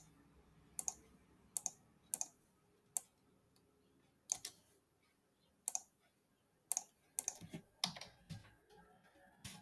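Computer keyboard and mouse clicking: single sharp clicks spaced half a second to a second apart, with a quicker run of clicks near the end.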